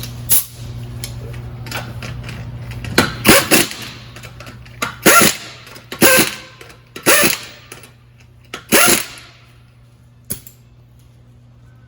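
Impact wrench running the wheel's lug nuts on in about five short hammering bursts, roughly a second apart. A steady low hum comes before the bursts.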